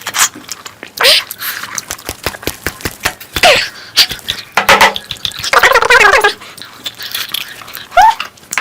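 Wet eating mouth sounds: chewing, lip-smacking and short slurps, with many small clicks and a longer wet crackling stretch in the middle.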